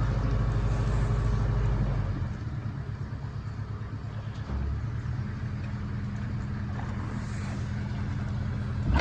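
Narrowboat's diesel engine running at a steady low throb, its lowest note easing off about two seconds in. A sharp knock right at the end.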